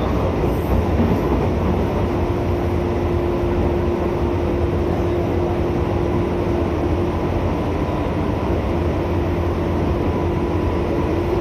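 JR West 201 series electric train running between stations, heard from inside the car: a steady rumble of wheels and motors with a constant whine-like tone above it.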